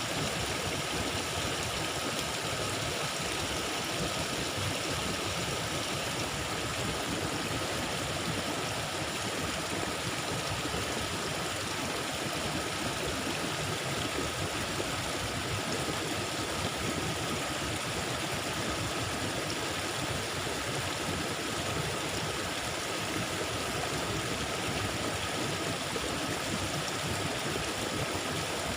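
Swift, swollen river water after a flood, rushing steadily, with a faint steady high tone under it.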